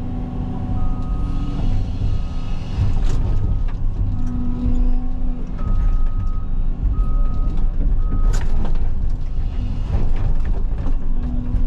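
Diesel engine of a CAT 323 excavator running steadily under work, with a backup alarm beeping on and off through it and a couple of sharp clanks.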